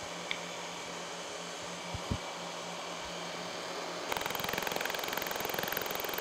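Lucas horizontal boring mill running as a single-tooth cutter takes a slotting cut about 100 thousandths deep in a metal shaft, a steady hum. About four seconds in, the sound turns to a denser, louder rapid ticking, the cut sped up ten times.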